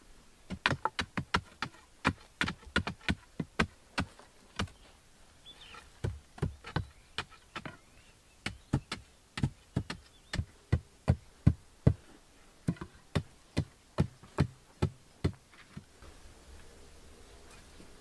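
Wooden poles jabbed repeatedly into hard earth: a run of sharp knocks, two or three a second, with a short lull about five seconds in, stopping a couple of seconds before the end.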